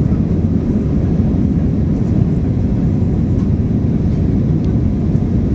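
Steady low rumble of an Airbus airliner's jet engines and rushing air, heard from inside the cabin during the climb after takeoff.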